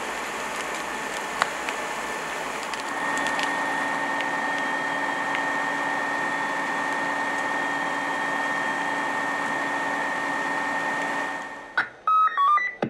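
A burning building crackling with scattered sharp pops. From about three seconds in, a Scania fire engine runs with a steady whine that cuts off near the end, followed by a short tune of a few loud electronic beeps.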